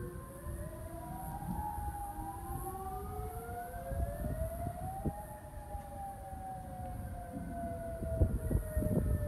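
Several outdoor tornado warning sirens wailing at once, each slowly rising and falling in pitch, out of step with one another, over a low uneven rumbling noise.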